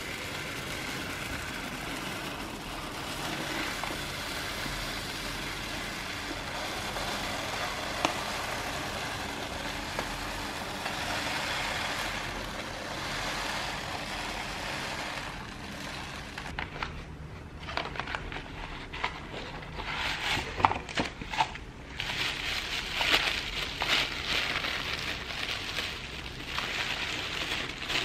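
A steady dry hiss for the first half, with a single click partway through. From a little past halfway it gives way to irregular crinkling and crackling of packaging being handled and unwrapped.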